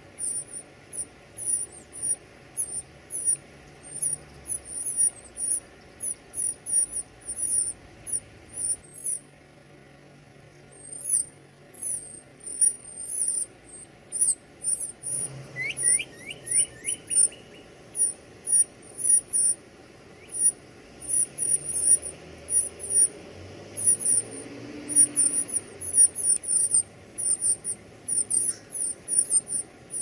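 Northern cardinal nestlings begging: a rapid, continuing run of thin, very high-pitched calls as the parents feed them, pausing briefly around ten seconds in. About sixteen seconds in comes a short series of four or five quick falling notes, lower in pitch.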